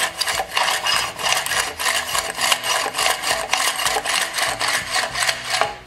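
Recoil starter of a Suffolk Super Colt engine being worked by hand, its rope and sprung pulley making a fast, even clatter that stops abruptly near the end. The starter had been gummy and has just been freed up with spray lubricant.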